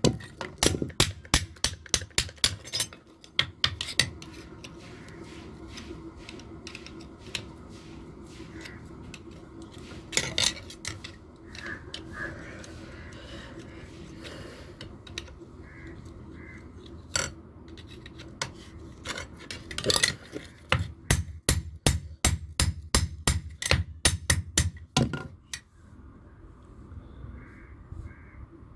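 Blacksmith's hammer striking a knife blade on the anvil. The blows come in quick runs of about three a second for the first few seconds and again for several seconds starting about twenty seconds in. Between the runs there are scattered single blows over a steady low hum.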